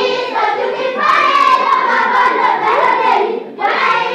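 A choir of children and women singing a church song together in unison, with hand claps keeping the beat. The singing breaks off briefly about three and a half seconds in, then starts again.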